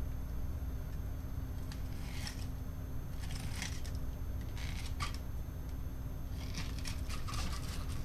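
Fillet knife cutting along the back of a whole yellowtail snapper on a plastic cutting board: short scraping strokes, a few spread out, then several in quick succession near the end, over a steady low hum.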